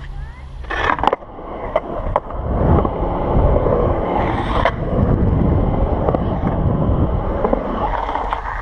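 Skateboard wheels rolling on the concrete of a skate bowl: a steady rumble that builds about two seconds in, broken by a few sharp clacks of the board.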